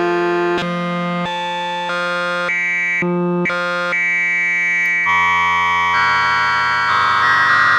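Arturia MicroFreak synthesizer playing a factory preset: a run of separate pitched notes, about two a second, then from about five seconds in a held chord with a moving bass line.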